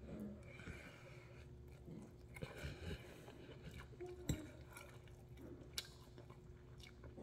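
Close-miked chewing of a mouthful of noodles, with a fork tapping against the plate; the sharpest clink comes a little after four seconds in.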